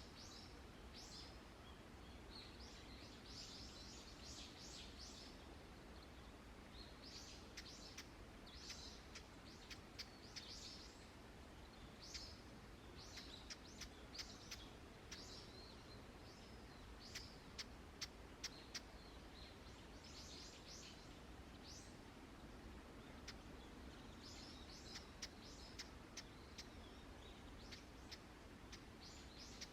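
Wild songbirds calling and singing faintly in short clusters of chirps, with a few sharp single high notes, over a steady low background rumble.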